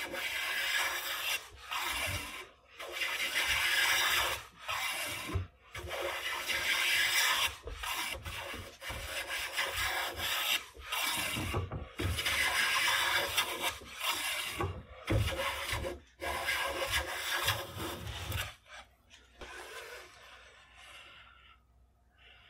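A hand plane shaving the edge of a walnut stock blank, in repeated strokes about one to two seconds long with short pauses between, which stop a few seconds before the end. The near edge is being planed down to bring the top surface square to the face of the board.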